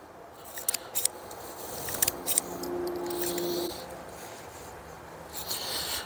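Scattered sharp metallic clicks from a Ruger Wrangler .22 single-action revolver being unloaded, the cylinder turned by hand with the loading gate open as spent cases are ejected. A faint steady hum sounds from about two to nearly four seconds in.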